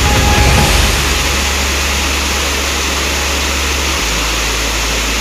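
Steady, dense rush of a waterfall, many streams of water falling over rock steps, with a low rumble underneath. Background music fades out within the first second.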